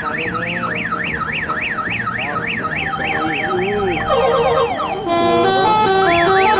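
Electronic siren-style sound effect: a fast up-and-down yelp, about three cycles a second, over a chiming electronic tune. From about five seconds in a louder beeping melody takes over, and the yelp comes back near the end.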